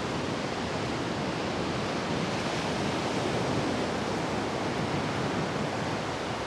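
Ocean surf breaking and washing up the beach, a steady rush without pauses.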